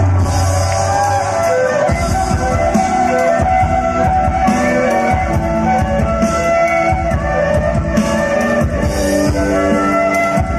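Live band music with a side-blown flute playing the melody over keyboard, guitar and a steady drum beat, amplified over a PA.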